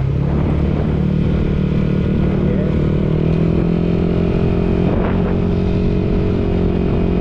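Yamaha Aerox 155 scooter's single-cylinder engine running while riding at steady throttle. Its pitch steps up at the start, then holds nearly level.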